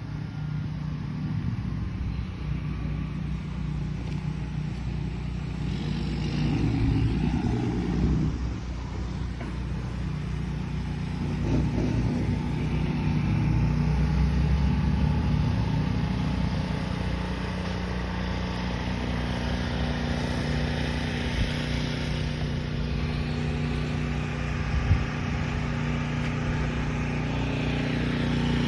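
A motor vehicle's engine running steadily while under way, with one brief sharp knock near the end.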